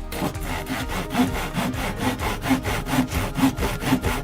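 Hand saw cutting an opening through a wall, in steady rhythmic back-and-forth strokes, about two a second.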